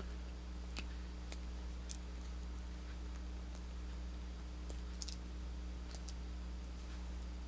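A few faint, sharp clicks from handling a Victorinox Alox Minichamp Swiss Army knife as its small tools are moved, over a steady low hum.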